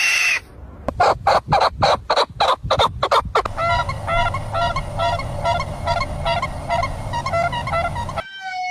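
Bird calls, first a quick run of harsh rasping notes, then a steady series of short honking calls, roughly two a second. A horn-like tone begins just before the end.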